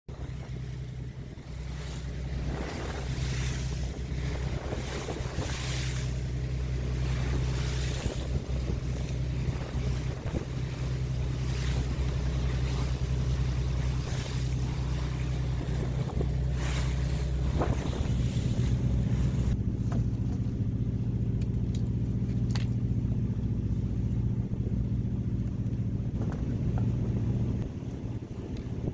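Fishing boat's engine running steadily under wind and water noise. About eighteen seconds in, the engine note rises and holds higher, then eases back near the end.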